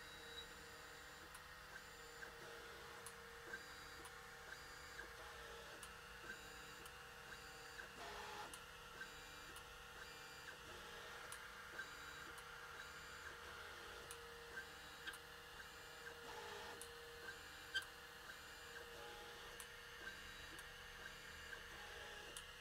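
Anycubic i3 Mega 3D printer running a BLTouch automatic bed-levelling routine, faint: short stepper-motor whirs as the head moves between probe points, about every eight seconds, and small irregular clicks from the probe between them, over a steady hum.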